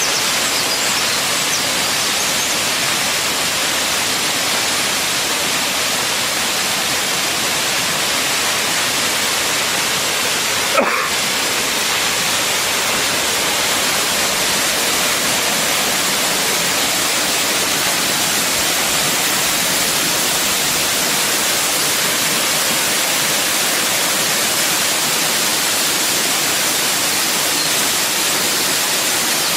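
Waterfall pouring, a steady, loud, even rush of falling water. One short knock about eleven seconds in.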